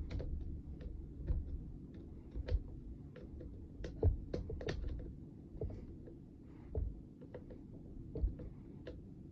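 Irregular small clicks and knocks of plastic parts being handled and fitted back together on a Stihl MS 200T chainsaw's handle, over a low steady background hum.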